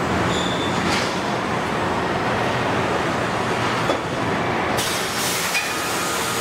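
Steady mechanical din of an automated car-body welding line, robots and conveyors running, with a short burst of hiss about five seconds in.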